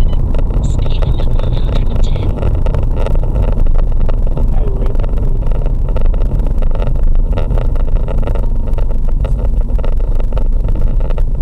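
Car driving at highway speed, heard from inside the cabin: steady engine and tyre noise as a constant low rumble.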